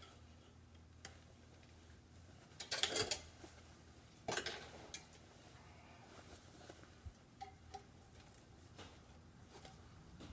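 Handling noise from work on a wrapped exhaust pipe: small metallic clinks and ticks, with two louder brief clatters about three and four and a half seconds in.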